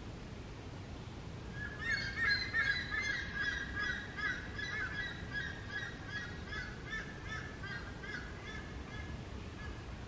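A bird calling in a rapid run of short, pitched notes that starts about a second and a half in. The calls are loudest at first and taper off near the end.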